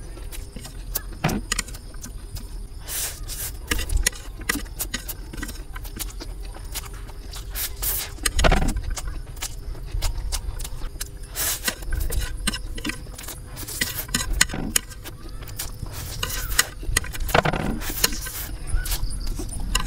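Close-miked eating of instant noodles: noodles slurped up in several strong sucks, between them chewing and many sharp mouth and chopstick clicks.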